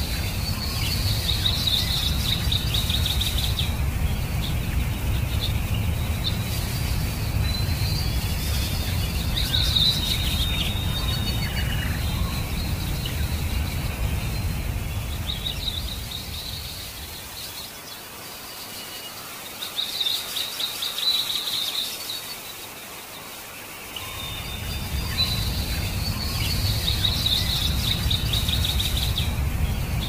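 Flowing stream ambience: a steady low rush of water that drops away for several seconds past the middle, then returns, with a bird singing short rapid trills every few seconds.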